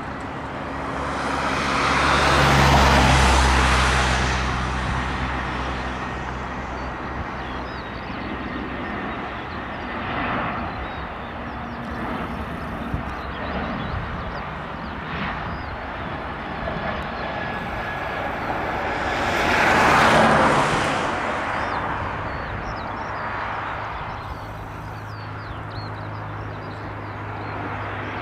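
Airbus A319 jet engines running on final approach and landing, a broad jet rush with a low rumble that swells loudly twice, about three seconds in and again about two-thirds through, and rises once more near the end as the aircraft rolls out on the runway. Small birds chirp faintly underneath.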